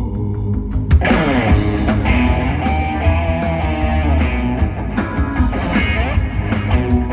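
Rock band playing live on stage: a held keyboard chord over bass, then about a second in the drums and electric guitar come in with the full band.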